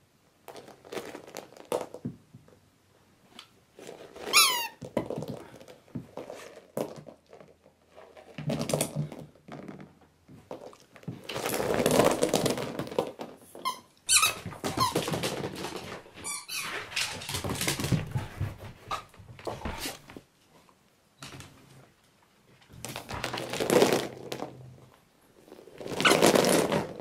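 Heaps of small rubber ducks rattling, knocking together and tumbling as a beagle roots through them and bites at them. A squeak from a squeezed duck rings out about four seconds in, with more squeaks and dull thunks of ducks hitting the sofa and floor in between.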